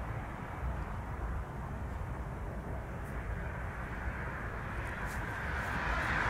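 Distant jet airliner engines at an airport, a steady rumble with a hiss that grows a little louder near the end.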